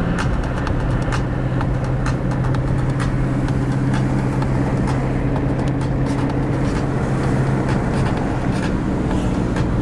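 A motorcycle engine running at a steady cruise, a constant low drone with road and wind noise over it; the engine note changes about eight seconds in.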